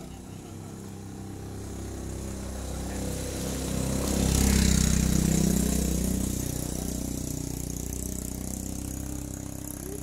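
A motor vehicle's engine passing by: it grows louder, is loudest about halfway through, then fades away.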